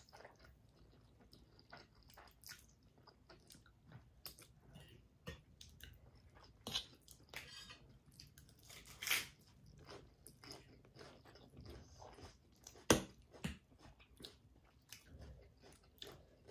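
People eating: chewing and slurping spicy noodles, with crunchy bites of raw lettuce leaf, in many short wet clicks and crunches. A sharp click, the loudest sound, comes about 13 seconds in.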